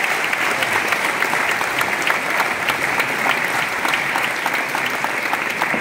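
Audience applauding steadily in a hall, many hands clapping at once.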